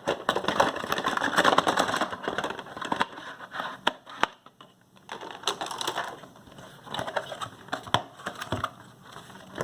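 Packaging being handled and unwrapped: a dense crackling rustle for the first few seconds, then scattered clicks and taps.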